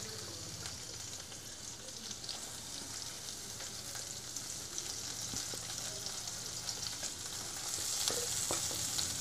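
Sliced onions and green chillies sizzling in hot sesame oil in a stainless steel kadai: a steady frying hiss that grows a little louder near the end.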